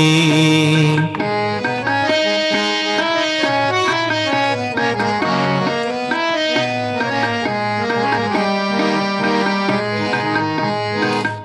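Instrumental interlude of a devotional song: a melody in held, stepping notes on a reed instrument such as a harmonium, over a steady tabla beat.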